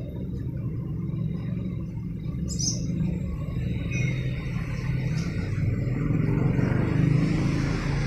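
Steady low rumble of road traffic, growing a little louder near the end, with a brief high chirp about two and a half seconds in.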